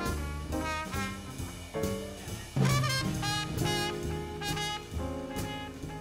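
Swing big band playing live, with a trumpet soloing over the saxophones, trombones and drum kit.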